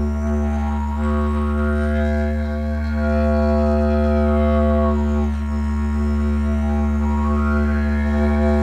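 Didgeridoo drone held steadily on one low note, its upper overtones swept up and down twice by changing mouth and tongue shape.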